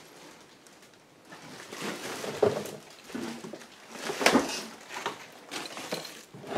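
Rummaging through a cluttered wooden dresser drawer: rustling of papers and plastic packets, with a few sharp knocks of objects and wood, the loudest about two and a half and four seconds in.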